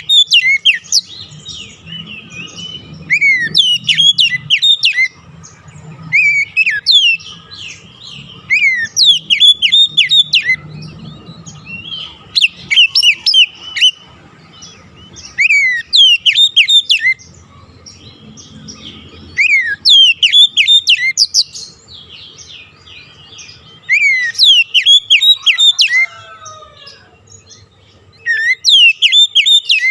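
Songbird singing a lure and stimulation song of the kind played to get an Oriental magpie-robin (kacer) to sing. It repeats short phrases every few seconds, each a downward-sweeping whistle followed by a fast run of high chirps, over a faint steady hum.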